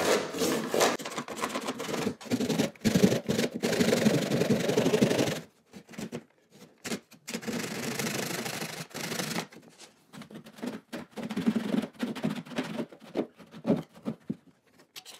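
Hand saw (DeWalt reversing back saw) cutting flush through the foot of a painted door casing, its blade guided flat on a scrap vinyl plank. The door casing is being undercut so a vinyl plank can slide beneath it. Quick back-and-forth rasping strokes run for about five seconds, then give way to softer, shorter strokes with pauses.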